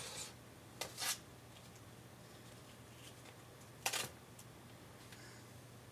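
Quiet handling sounds: a few short rustles and clicks, about a second in and again near four seconds, as hands work a hair clip into a woman's hair. A low steady hum runs underneath.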